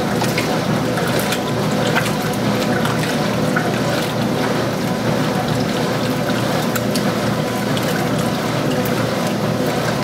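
Early-1980s Montgomery Ward top-load washer agitating in its wash cycle: water sloshing and splashing around the swinging agitator, with many small splashes over a steady mechanical hum.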